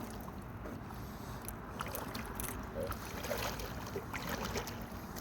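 Lake water sloshing with small scattered splashes as a carp is let back into the water, over a steady low rumble.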